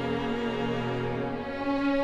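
Symphony orchestra strings playing slow, sustained bowed notes. The violins and violas sound over lower strings. About one and a half seconds in, the low notes fall away and a new held note comes in.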